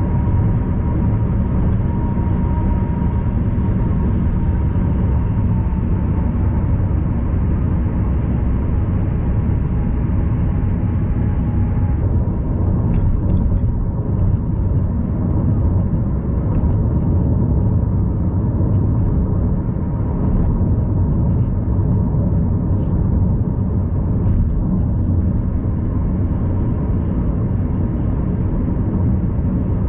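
Steady low road and engine rumble heard inside a car's cabin while cruising at highway speed, with a few faint ticks in the second half.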